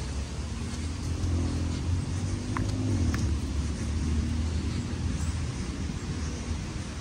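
A motor vehicle passing out of sight, its low engine rumble swelling for a few seconds and then fading, over a steady background hiss. Two brief high chirps sound near the middle.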